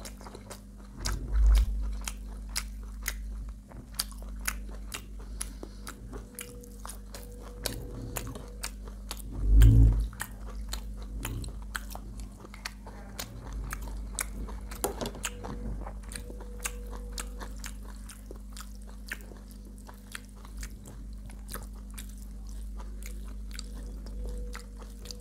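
Close-miked chewing and biting of a meal of rice and curry, with many sharp mouth clicks and smacks and some crunching. Two louder low thumps come about a second and a half in and about ten seconds in, over a steady low hum.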